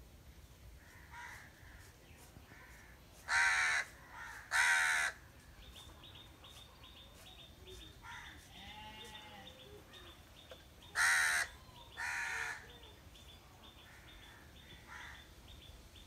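House crow cawing: two pairs of loud, harsh caws, the first about three seconds in and the second about eleven seconds in. Fainter calls and a rapid series of high ticks sound in the background between them.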